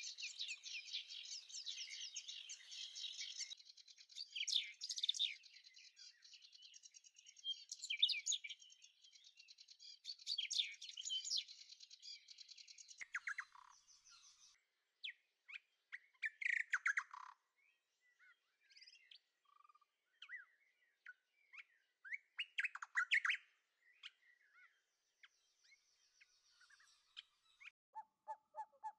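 Small birds chirping and twittering, dense and overlapping for the first dozen seconds or so, then thinning to scattered separate chirps. Just before the end a lower, repeated call comes in.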